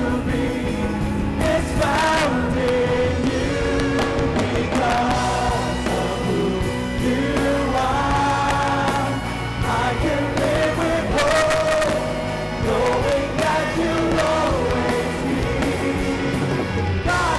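Live Christian worship song: a man sings the lead into a microphone over instrumental accompaniment, with the congregation singing along.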